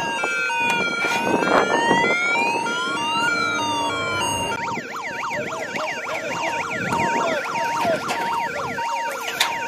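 Sirens sounding over one another: a slow wail rising and falling, switching about halfway to a fast yelp of about three cycles a second, with a steady on-off beeping tone underneath. A couple of sharp knocks come through, one near the start and one near the end.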